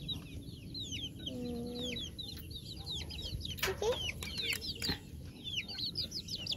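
Chicks peeping: a steady run of many short, high, falling chirps, with a lower call about a second and a half in and a few knocks.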